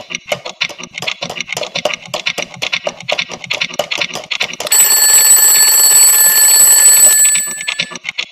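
Clock ticking rapidly, about six ticks a second. About 4.7 s in, a red twin-bell alarm clock starts ringing loudly and steadily, then stops and fades out near the end.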